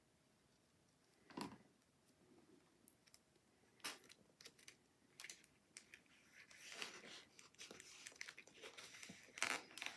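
Faint rustling and small clicks of a cardstock frame and a plastic dome card being handled and pressed down by hand, a couple of single ticks at first and busier rustling over the last few seconds.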